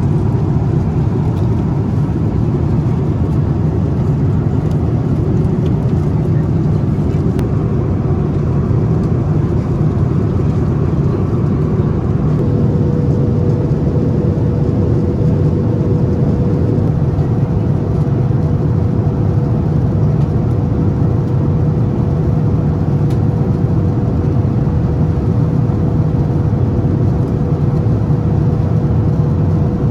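Steady cabin noise of a Boeing 787-9 in flight, heard inside the passenger cabin: the low rush of engines and airflow. About twelve seconds in, a steady hum joins it and holds.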